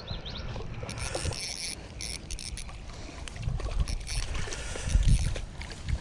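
Low, uneven rumble of wind and body movement on a chest-mounted camera microphone, swelling loudest around the middle and again about a second before the end. Faint clicks of a small spinning reel being handled and cranked come through over it.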